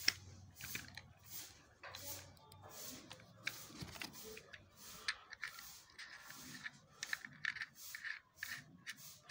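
Plastic parts of a suction-cup car phone holder being handled and fitted together: irregular clicks, taps and rustles, the sharpest click just at the start.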